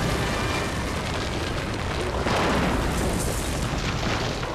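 Cartoon sound effects: a sustained, explosion-like rumble of noise, swelling about two seconds in and dying away near the end.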